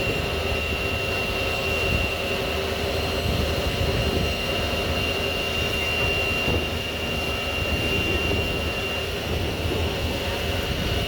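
Amphibious duck boat's engine running steadily while underway on the water, a constant rumble with a thin high whine over it.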